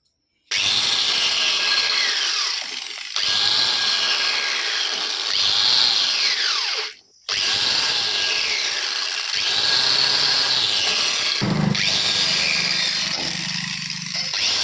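Handheld power tool running in long, loud stretches, its pitch sliding up and down as it is pressed on and eased off, with a short break about seven seconds in. The tool is cleaning carbon off a Hero Splendor's cylinder head.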